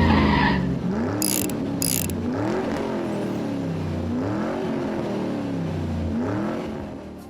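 Car engine revving up and falling back over and over, with tires skidding. It starts suddenly and fades near the end, with two short hissing bursts about a second in.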